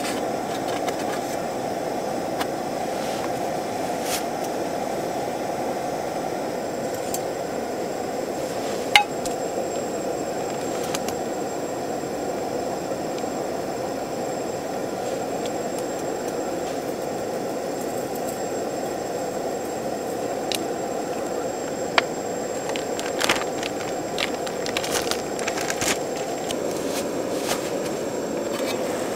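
Portable gas canister stove burning under a lidded aluminium mess tin of steaming whelks, a steady rushing sound of flame and boiling water. Over it come a few sharp clinks of a small glass bottle and metal bowl, one about a third of the way in and several near the end.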